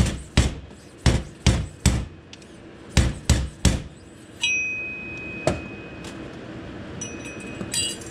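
A 49 mm slide-hammer fork seal driver sliding down a Harley-Davidson fork tube and striking, metal on metal, to drive the fork seal into the slider: about nine sharp knocks in quick groups of two or three. Partway through, a high metallic ring hangs on for about two seconds.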